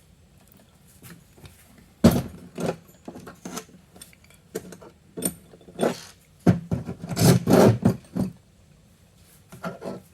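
Metal parts and tools clinking, rattling and scraping as they are handled, with a sharp knock about two seconds in and a thick patch of clatter around seven to eight seconds.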